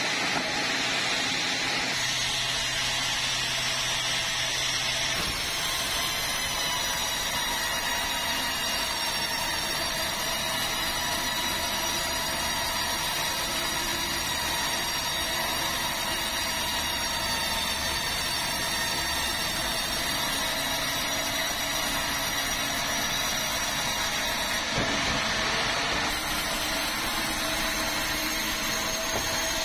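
Band sawmill running and ripping through a large red meranti log: a steady sound of the blade cutting, with a constant whine over it.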